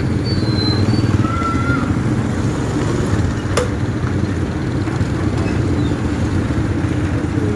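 An engine running steadily, with a single sharp click about three and a half seconds in.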